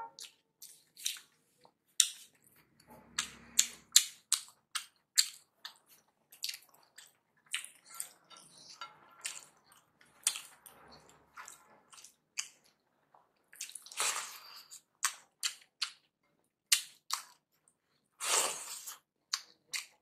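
Wet hand-eating sounds: fingers squishing and mixing rice with lentil dal on a plate, alongside chewing and lip smacks, as a run of many short sharp squelches and clicks. A couple of longer, wetter swishes come about two-thirds of the way in and again near the end.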